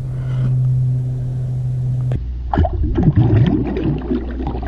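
A steady low hum, then, after an abrupt change about two seconds in, water splashing and gurgling close up as a largemouth bass is released by hand at the surface and kicks away.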